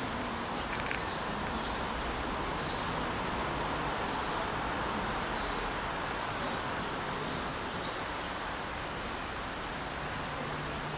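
Steady outdoor background hiss of a built-up street, with short high chirps repeating about once a second.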